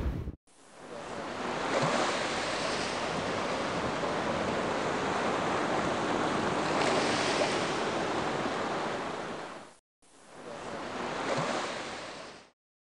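Ocean surf washing steadily on a beach, in two stretches: a long one of about nine seconds, then a brief gap and a shorter stretch that fades out.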